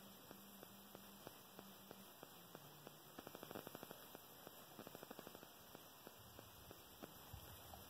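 Faint, rapid crunching of a black bear chewing sunflower seeds, coming in short runs of quick clicks, over a steady faint hum.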